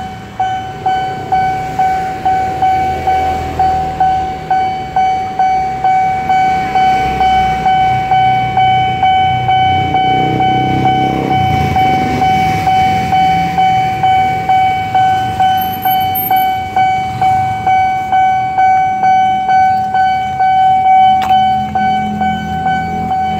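Railway level-crossing warning bell ringing continuously, about two strikes a second, with a steady ringing tone between strikes. Low engine rumble from waiting traffic underneath.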